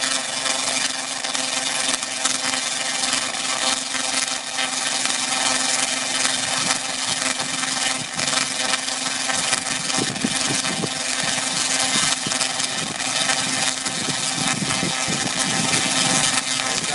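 Tesla coil running, its spark discharges making a loud, steady crackling buzz. Irregular gusts of wind on the microphone join in from about ten seconds in.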